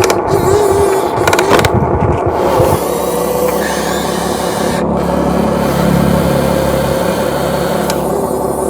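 RC excavator at work: a motor whine that wavers in pitch with load, over steady lower machine noise, while the bucket scrapes and rubs through dirt. Sharper knocks in the first three seconds, then steadier running.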